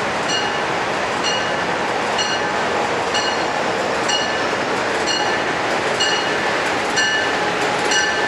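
Train passing with a steady rush of wheels on rail, and a short high ding repeating about once a second.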